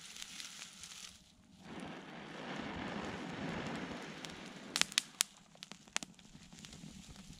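Long, steady blowing into a smouldering dry-grass tinder bundle, the breath rushing through the grass to build the ember into flame, after a short breath and pause. About five seconds in, a few sharp crackles and snaps come from the bundle as it begins to catch.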